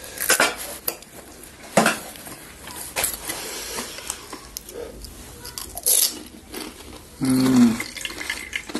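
Scattered clinks and taps of plates and utensils while panipuri is being handled and eaten. A short voiced sound, like a hum, comes about seven seconds in.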